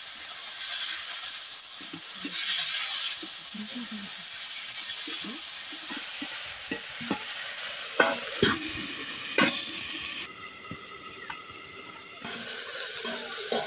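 A flat metal spatula stirs and scrapes brinjal and snail pieces frying in a metal wok, with a steady sizzle. A few sharp clinks of spatula on pan come about eight to nine and a half seconds in. The sound drops quieter for about two seconds near the end, then the sizzle returns.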